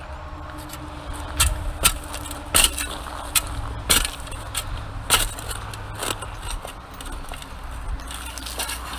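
Hand digging into beach sand and gravel at a metal-detecting target: a series of sharp scraping crunches, about one every half second to second, over a steady low rumble.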